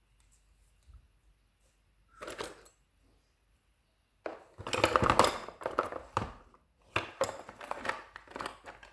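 Small metal lockpicking tools clicking and clattering against each other as they are handled and sorted, starting about four seconds in after a quiet stretch.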